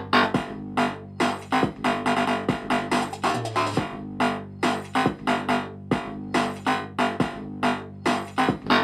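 Instrumental stretch of a pop song, synthesizer and keyboard over a steady drum beat, played loud through an 8-inch car audio speaker under test.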